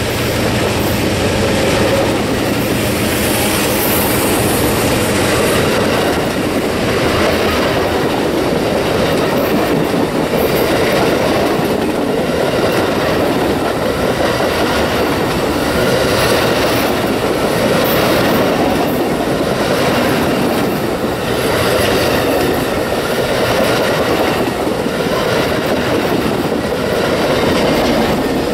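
Amtrak Superliner bilevel passenger cars and autorack cars rolling past close by. Their steel wheels run with a steady loud rumble and a rhythmic clickety-clack as each set of wheels crosses the rail joints.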